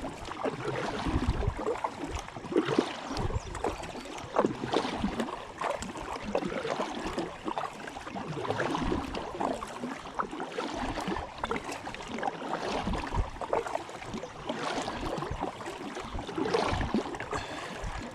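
Water splashing and lapping around a kayak, with irregular splashes and knocks every second or two.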